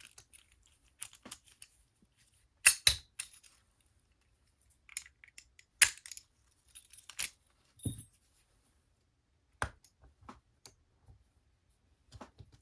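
Master Lock No. 101 padlock being unlocked with its key and handled: keys jangling and a series of sharp metal clicks and knocks, the loudest about three and six seconds in.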